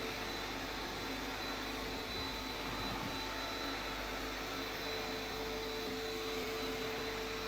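Vacuum cleaner running steadily on carpet, a constant rushing hiss with a steady motor whine.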